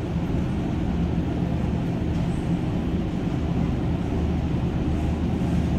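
Steady low hum of running machinery, with no distinct knocks or clicks over it.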